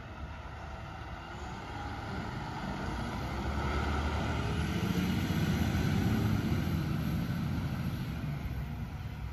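Mack LR Labrie side-loader garbage truck driving off, its engine rumbling as it pulls away. The rumble builds to its loudest about halfway through, then eases slightly.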